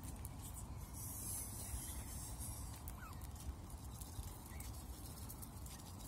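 Canada goose goslings peeping faintly, a few short rising chirps, over a steady low rumble.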